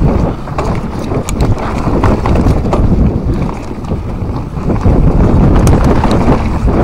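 Wind rushing over the on-bike camera's microphone as a mountain bike descends a dirt trail, with tyres rumbling over the ground and scattered clicks and rattles from the bike. The rush grows louder about five seconds in.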